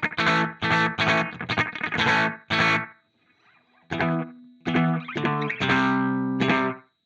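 Electric guitar played through a Dolamo D-14 delay pedal: a run of short, rhythmic chord stabs, a brief lull about three seconds in, then more chords that cut off abruptly near the end.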